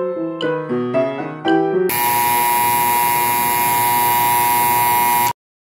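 Piano music, then a GraLab timer's alarm buzzer goes off as its hand reaches zero. The buzzer sounds loud and steady for about three and a half seconds and cuts off abruptly, signalling that the 20-minute bake time is up.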